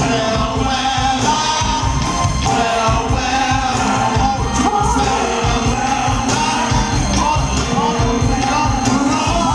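Live R&B vocal group performing with a band: a male lead singer and female backing singers over keyboards and drums with a steady beat.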